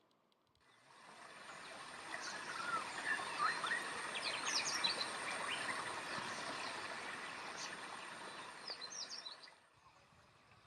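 Several wild birds calling with many short chirps and whistles over a steady background hiss, with a thin high steady tone underneath; the sound fades in about a second in and cuts off shortly before the end.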